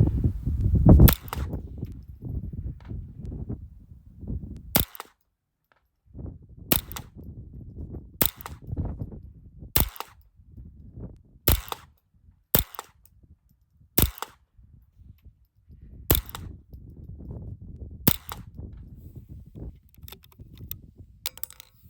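Ruger 10/22 .22 LR semi-automatic rifle firing ten single shots, one every 1.5 to 2 seconds, each a sharp crack. Low wind rumble on the microphone between shots.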